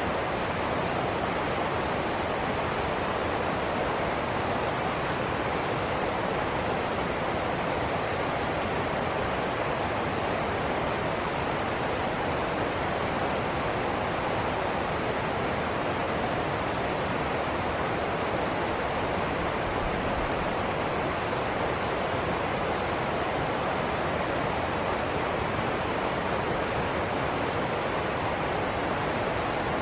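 Stream rapids: water rushing over rocks and small ledges in a steady, unbroken rush.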